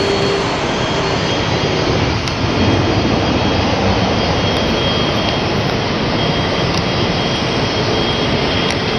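Jet engine noise of a Boeing 777 landing: a steady, loud rushing sound with a thin whine above it as the airliner touches down and rolls out, getting a little louder about two and a half seconds in.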